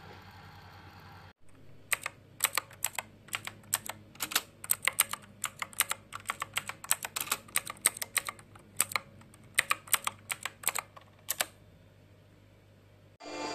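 Typing on a laptop keyboard: irregular key clicks, several a second, starting about two seconds in and stopping a couple of seconds before the end.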